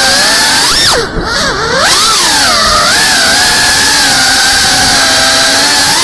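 FPV racing quadcopter's brushless motors whining, the pitch following the throttle: it drops sharply about a second in, climbs back, then holds a fairly steady high whine.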